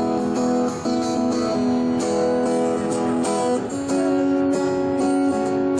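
Acoustic guitar strumming chords, an instrumental stretch between the sung lines of a song.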